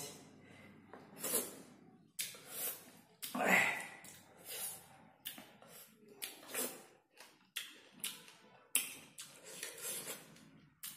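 Chewing of raw Hei-yai fruit pieces: a string of short, crisp crunching and smacking bites, unevenly spaced.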